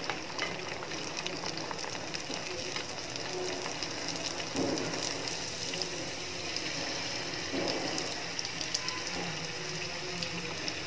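Semolina puris deep-frying in hot oil: a steady sizzle full of fine crackles, swelling briefly about four and a half and seven and a half seconds in.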